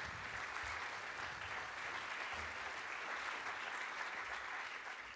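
Audience applauding: steady clapping from a seated crowd, easing slightly near the end.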